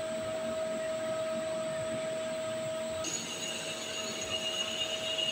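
CNC lathe running in its automatic facing cycle: a steady machine hum with a held tone as the spindle turns the workpiece and the tool cuts the end face. About three seconds in the sound changes abruptly and a higher-pitched whine comes in, growing slowly louder.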